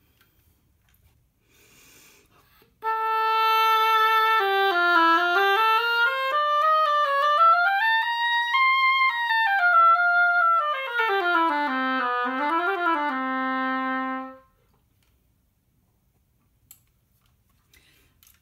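Oboe played on a freshly adjusted handmade double reed: a slurred phrase of about eleven seconds that starts on a steady middle note, climbs to a high note and sweeps down to a held low note. The reed is being test-played after its tip was scraped and clipped to add resistance, and the player finds it easy to play and basically in tune.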